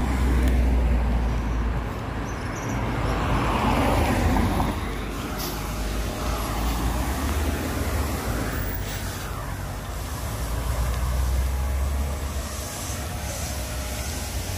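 Street traffic noise: a steady low rumble, with cars passing now and then, one swelling about four seconds in and others around nine and eleven seconds in.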